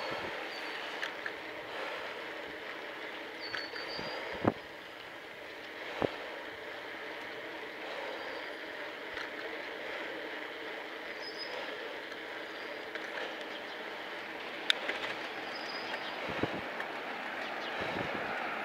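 Steady rolling and wind noise of a bicycle ride picked up by an action camera, with two sharp knocks about four and a half and six seconds in, and short high chirps now and then.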